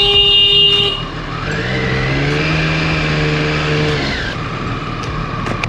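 A horn blaring, held until about a second in, then a motorcycle engine accelerating: its pitch rises and holds for about two seconds before it drops away.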